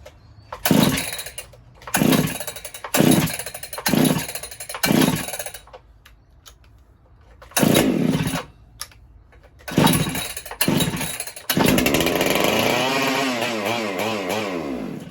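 Ported Husqvarna 395XP two-stroke chainsaw being pull-started: it fires briefly on a series of pulls, then catches about eleven seconds in and runs with an unsteady, wavering speed for a few seconds before cutting out suddenly. The owner suspects a carburettor or ignition problem.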